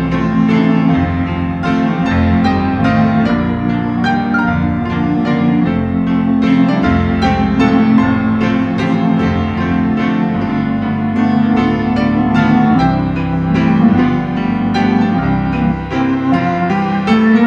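Piano and organ playing a Christmas piece together: struck piano notes over held low tones.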